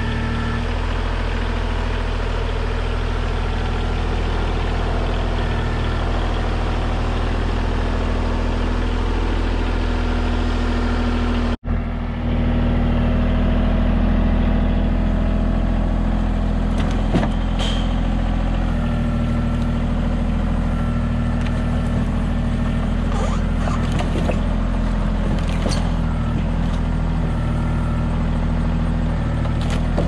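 Mahindra tractor's diesel engine running steadily while it loads sawmill slabs with its forks. There is a short dropout about twelve seconds in, and after it the engine keeps running with scattered knocks of wood on wood.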